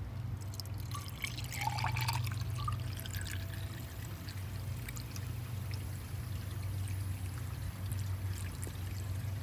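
Coolant, a half-and-half mix of Dexcool and distilled water, pouring from a plastic jug into the filler neck of a freshly replaced radiator, splashing and gurgling down the neck, busiest about one to three seconds in. A steady low hum runs underneath.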